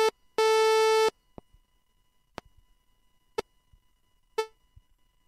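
Sawtooth note from the Prologue software synthesizer, played at the same pitch again and again while its volume envelope is changed. First it is a held, steady note that stops abruptly. Then, with sustain at zero, it becomes short blips about once a second, each fading a little more slowly as the envelope's decay is turned up.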